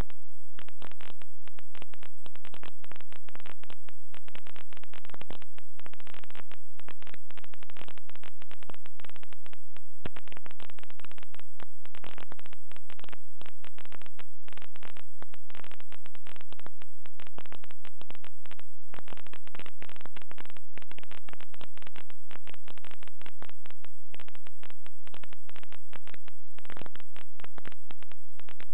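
Background music accompanying the film, in an old, muffled recording.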